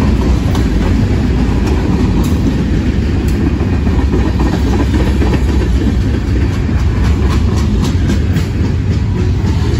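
Freight cars of a mixed freight train rolling past close by: a loud, steady rumble of steel wheels on rail, with scattered sharp clicks, more of them near the end.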